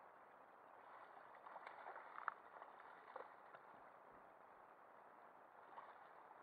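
Faint water lapping against a kayak, with a cluster of sharp splashes and knocks about two seconds in, as a hooked smoothhound thrashes at the surface beside the hull, and one more splash near the end.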